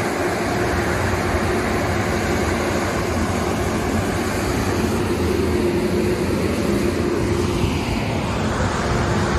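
Ryko car wash's blower dryers running at the tunnel exit: a loud, steady rush of air with a steady hum under it.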